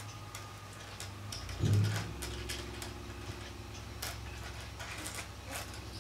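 Small stones of rough opal clicking and tapping against each other as fingers shuffle them around, in scattered light ticks over a steady low hum. A louder low bump comes a little under two seconds in.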